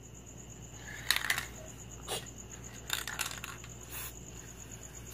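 Faint handling sounds of an aerosol can of clear spray: a few short hissy bursts about a second in and again around three seconds, with a single sharp click in between.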